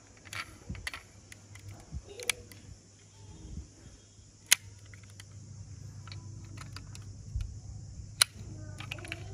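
Small sharp clicks and taps of a toy SUV model being handled, its doors snapping open and shut; the sharpest clicks come about halfway through and again near the end.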